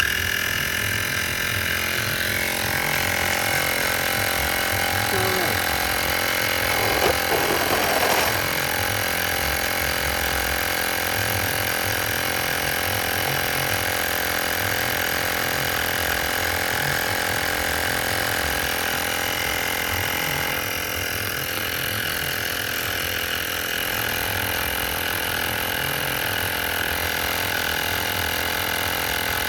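A motor running steadily, starting abruptly about when the sound begins, with a brief irregular disturbance about a quarter of the way through.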